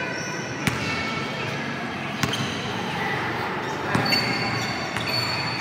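Basketball bouncing on a hard court floor: three sharp single bounces, roughly a second and a half apart.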